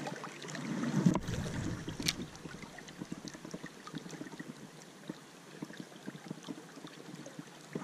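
A spinning reel being cranked to retrieve a spinner, a run of fine ticks, over the steady rush of a stream and wind on the microphone. About a second in there is a louder rush and a sharp click as the cast is made.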